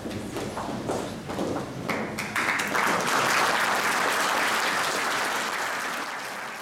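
Concert audience applauding: scattered clapping at first, building into full applause about two seconds in, then dying away near the end.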